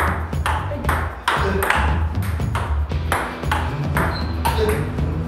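Table tennis rally: a celluloid-type table tennis ball knocked back and forth, clicking off rubber-faced paddles and bouncing on the table, about two to three sharp clicks a second in an even rhythm. A steady low hum runs underneath.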